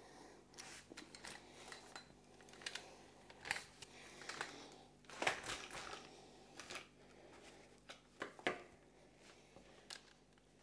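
Knife and utensils at work on a smoked brisket on a cutting board: quiet scraping with scattered light knocks and clicks, the loudest about five seconds in.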